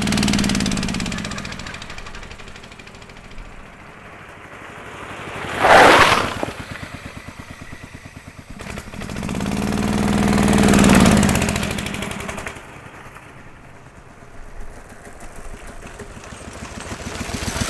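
Small petrol engine of a home-built motorised shopping trolley running and revving as it drives by, loudest about six seconds in, swelling again with rising and falling pitch around ten seconds, then fading and coming closer again near the end.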